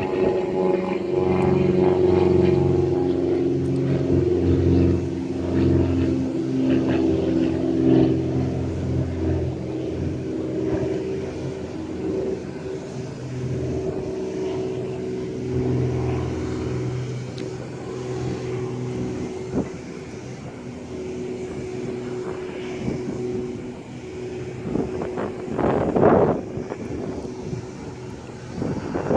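Delta Connection CRJ regional jet running on the apron during pushback, a steady engine hum under a heavier low rumble that is loudest for the first ten seconds. Near the end there is a short burst of rushing noise.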